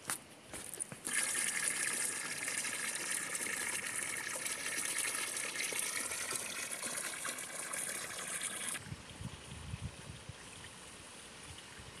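Water from a small spring pouring out of a spout and splashing onto stones: a steady splashing hiss that starts about a second in and cuts off abruptly near nine seconds. After it, fainter low rumbling with a few low knocks.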